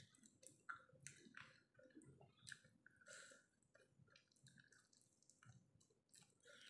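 Faint, irregular wet smacks and clicks of a mouth chewing and sucking meat off a cooked chicken foot.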